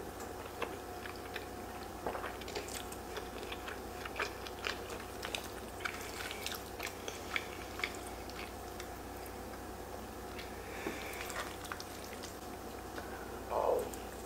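Close-up eating sounds of a person chewing and slurping fettuccine alfredo: many small wet mouth clicks, with the occasional clink of a fork and wooden spoon in the pan, over a faint steady hum. A brief louder sound comes near the end.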